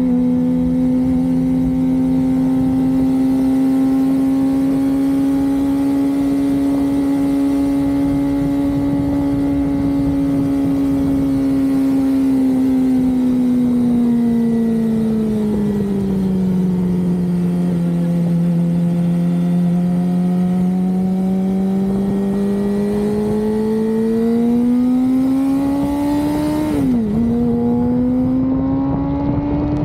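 Suzuki GSX-R sportbike's inline-four engine running under way, its note holding steady, easing lower through the middle and then climbing again. Near the end the pitch drops sharply for a moment and picks up again lower and rising, as in an upshift.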